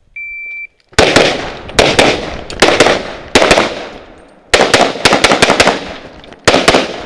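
Electronic shot-timer start beep, a steady high tone of about half a second, then a Tanfoglio pistol in .38 Super fired rapidly, mostly in quick pairs of shots, with short pauses between the groups.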